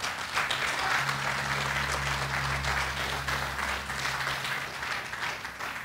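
Congregation applauding, starting about half a second in and thinning out near the end, with a low steady tone underneath for a few seconds.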